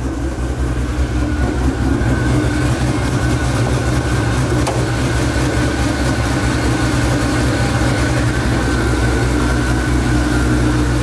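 Cammed Ford Shelby GT500's supercharged V8 idling steadily.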